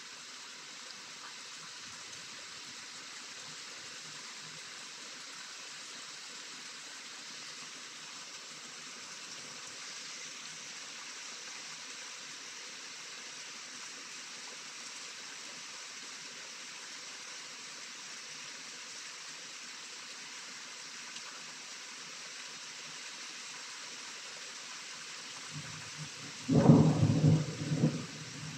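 Steady rain falling, an even hiss of drops. Near the end a thunderclap rumbles in and cracks loudly for about two seconds.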